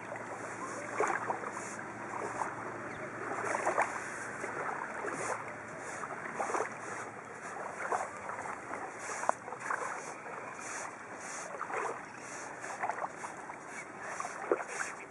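A stick scraping letters into dry beach sand: short, irregular scratching strokes, one every second or so, over a steady background hiss.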